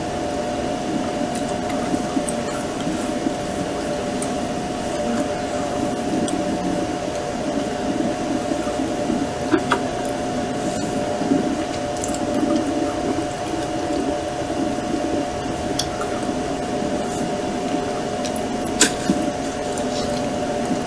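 Honeybees from a freshly installed package buzzing en masse on the hive's top frames: a steady hum with a few light clicks.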